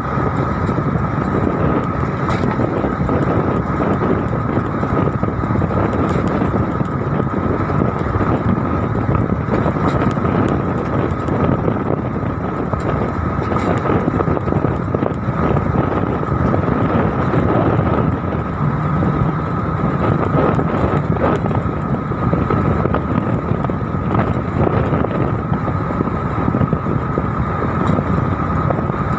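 Steady running noise of a road vehicle driving at speed, tyres and engine with rushing air, with a constant high hum throughout.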